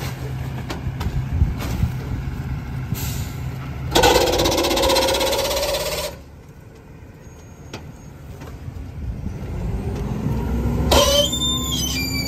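Rear-loader garbage truck with a McNeilus packer body idling while bags drop into the hopper. A loud hiss comes about four seconds in, and the engine then revs up as the hydraulic packer blade cycles to compact the load, ending in a clank and high metal squeals near the end.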